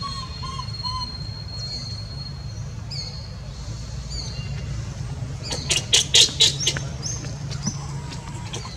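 Birds chirping over a steady low hum, with a run of about six rapid, shrill high-pitched calls a little past halfway.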